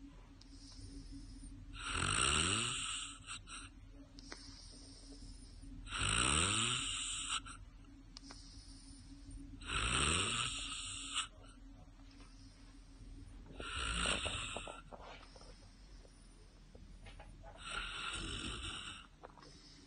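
A person snoring in a steady rhythm: five loud snores about four seconds apart, each about a second long and rising in pitch, with quieter breathing between them.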